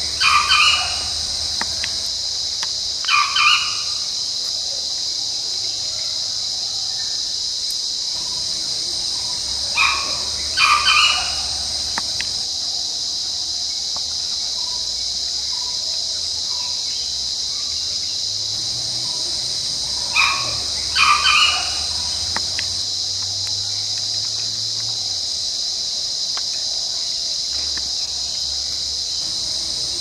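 A Sri Lanka junglefowl rooster crowing about four times. Each crow is a short staccato call: one note, then a quick double note. Behind it runs a steady high drone of insects.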